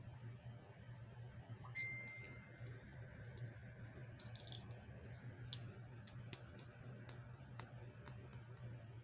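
Faint, irregular clicks and taps of small plastic toy pieces being handled, starting about two seconds in, with a brief high squeak near the first click. A low steady hum runs underneath.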